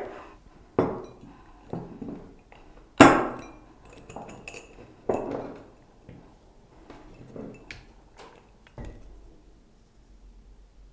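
Kitchenware clinking and knocking while black pepper is added to a salad dressing: about eight separate sharp clinks with a short ring, the loudest about three seconds in, then they die away.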